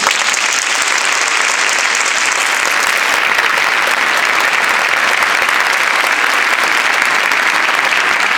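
Audience applauding loudly and steadily in a theatre hall.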